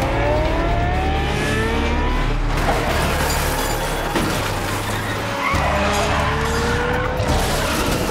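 Action-film car chase sound mix: car engines revving in rising notes, tyres skidding and several metallic crashes, over a driving music score.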